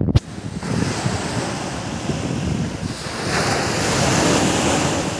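Surf washing onto a beach, swelling to a louder wash about three seconds in, with wind buffeting the microphone. A brief knock at the very start.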